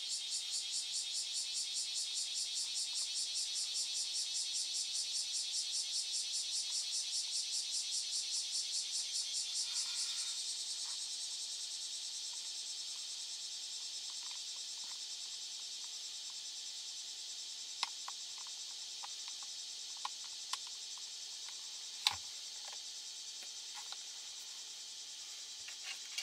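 A steady high insect trill pulses rapidly, then turns smoother about ten seconds in. In the second half a few small sharp clicks come from plastic parts of a radio-control car chassis being handled and fitted, the loudest a little after twenty seconds in.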